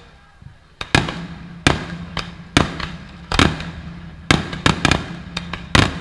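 Fireworks bursting overhead: about ten sharp bangs at irregular intervals of half a second to a second, starting about a second in after a quieter moment.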